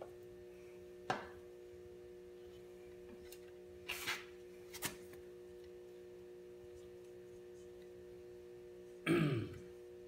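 A few sharp clicks and light knocks from a screwdriver and hose parts being handled, over a steady low hum. About nine seconds in comes a short, louder sound that drops in pitch.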